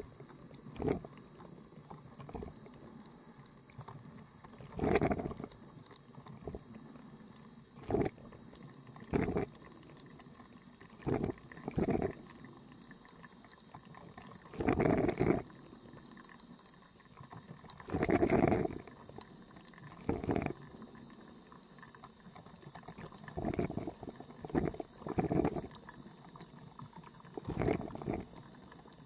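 An old coffee machine brewing: irregular bursts of liquid noise, each lasting from a fraction of a second to about a second and a half, over a low steady background. The longest bursts come about a third and two-thirds of the way in.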